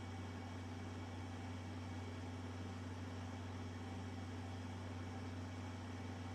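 Steady low electrical hum under an even hiss, with no changes or events: the background noise of a VHS tape playing back with no programme sound.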